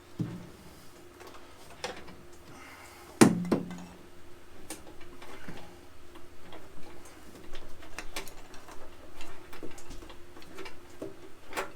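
Light, irregular clicks and taps with a sharp knock about three seconds in: a speedometer cable and its sleeve being worked by hand through a Vespa scooter's fork and steering head.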